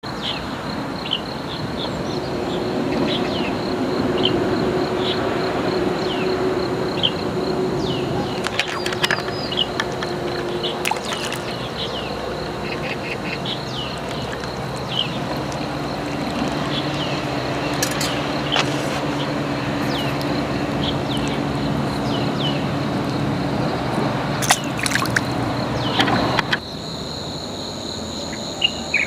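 Outdoor ambience: a steady, high-pitched insect trill, with scattered short chirps and a few sharp clicks over a broad background hiss and faint low hum. The hiss and hum drop away about 26 seconds in, leaving the insect trill.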